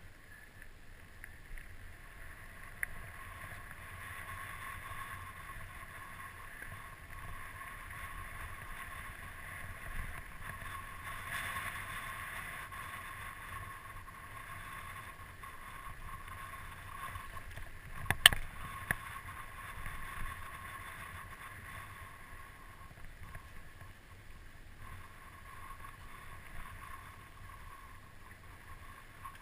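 Mountain bike rolling along a dirt singletrack, heard from a helmet-mounted camera: a steady rush of tyre noise and wind, with a sharp knock about 18 seconds in.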